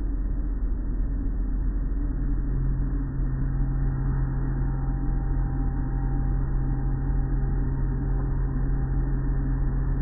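Automatic car wash tunnel machinery running: a steady low rumble of motors and water, joined about two seconds in by a steady machine hum.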